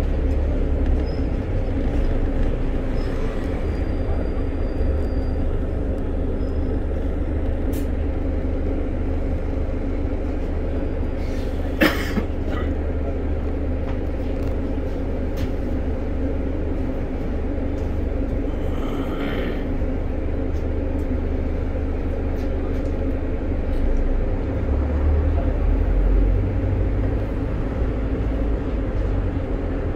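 Steady engine and road drone of a double-decker bus on the move, heard from inside the upper deck. A single sharp knock comes about twelve seconds in, and a brief hiss follows a few seconds later.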